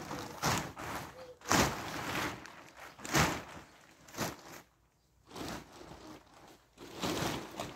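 Loose wheat grain being shoveled and thrown by hand: a rushing swish of grain about six times, a second or so apart, with quieter gaps between the loads.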